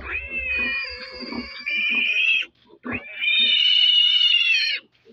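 Suckling piglet squealing loudly in long, high-pitched squeals: one of about two and a half seconds, a short break, then another of about two seconds.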